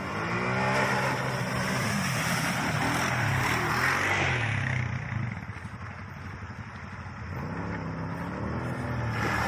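Off-road quad bike and UTV engines revving, their pitch rising and falling as the vehicles work through the trail, with a rushing noise a couple of seconds in.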